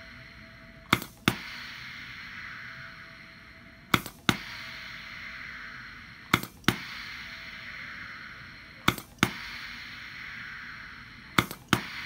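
Hibar 4F2C filling machine cycling repeatedly, each cycle a sharp double click about a third of a second apart, five cycles about two and a half seconds apart, with a soft hiss between them. Each double click is one shot of water of about half a gram.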